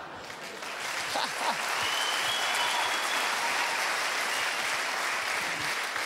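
Large theatre audience applauding after a punchline. The clapping swells about a second in and then holds steady.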